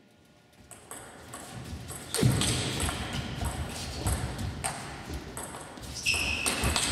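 Table tennis rally: a plastic ball struck back and forth with bats and bouncing on the table in a series of sharp clicks and pings. The hits start faintly and grow louder from about two seconds in.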